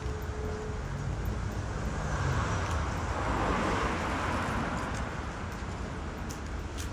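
A car passing along the street: tyre and engine noise swells to a peak about three and a half seconds in, then fades, over steady city traffic noise.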